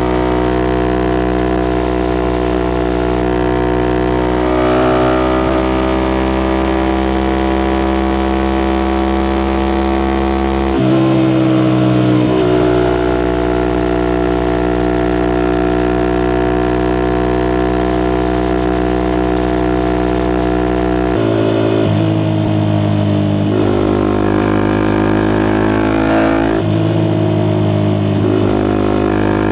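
Suzuki Gixxer SF 250's single-cylinder engine running through a Yoshimura R11 exhaust while riding, mostly holding a steady note with changes in engine speed about a third of the way in, about two-thirds in and again near the end.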